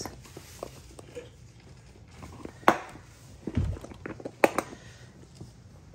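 Quiet handling noise with a sharp click or knock about two and a half seconds in, a dull thump about a second later, and another sharp click or knock about four and a half seconds in.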